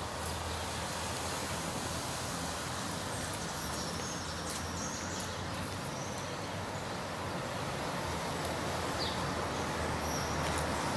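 Steady outdoor background noise, an even hiss over a low rumble, with a few faint high bird chirps now and then.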